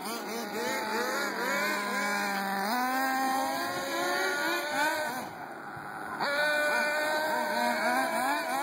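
Two Reely Overheater 1/8-scale RC buggies' Force 4.1 cc nitro glow engines running, their pitch rising and falling in quick throttle bursts as they are driven, over a steadier engine drone. The sound drops briefly a little past halfway, then comes back as loud.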